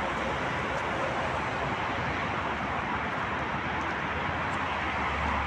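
Steady city street noise: traffic running past, with a low rumble.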